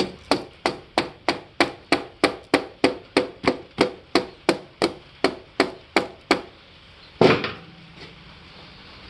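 Rubber mallet tapping the side of a Kawasaki KX85 two-stroke's cylinder in a steady run of about twenty blows, roughly three a second, to break it loose from the crankcase. After a pause, one heavier thump a little after seven seconds is the loudest sound.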